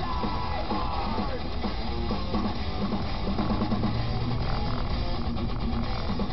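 Rock music with guitar, steady and rhythmic.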